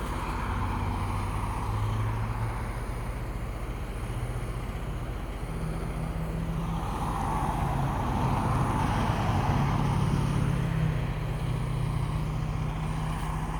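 Semi truck's diesel engine running, a low steady drone over road noise that swells for a few seconds in the middle.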